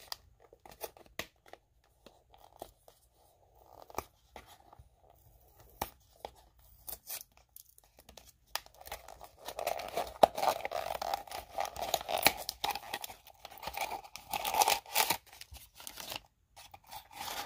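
Hands tearing and crinkling open the packaging of a small surprise toy. There are scattered clicks and rustles at first, then steady crinkling and tearing from about halfway through.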